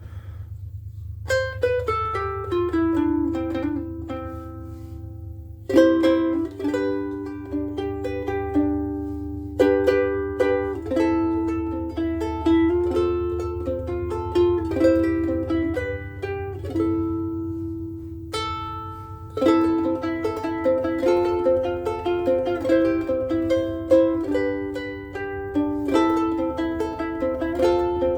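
Soprano ukulele strung with UkeSA strings, played solo: plucked chords and melody phrases with short breaks between them.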